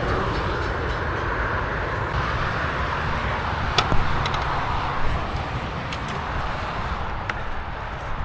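Steady outdoor noise of passing road traffic, with a few sharp clicks about four seconds in.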